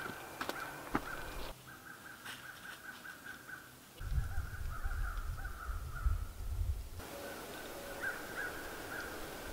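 Outdoor woodland ambience with a bird calling over and over in short repeated notes, and a low rumble for a few seconds in the middle.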